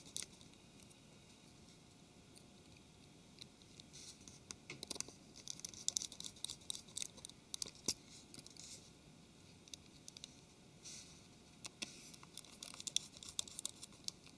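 Small Phillips screwdriver turning tiny screws into a Samsung Galaxy S4's frame. Faint scratchy clicks of the bit on the screw heads come in clusters, with a sharper click about eight seconds in.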